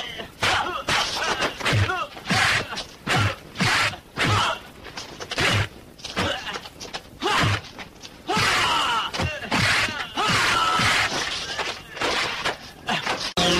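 Dubbed fight sound effects: a rapid series of punch and kick impacts, roughly one every half second to second, with the fighters' shouts and grunts between them.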